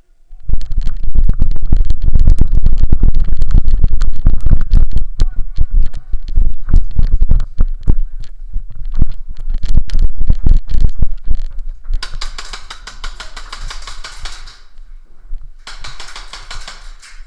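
Airsoft guns firing in rapid bursts close to the microphone, a dense clatter of shots with heavy thumping, followed by two loud bursts of hiss, each a second or two long.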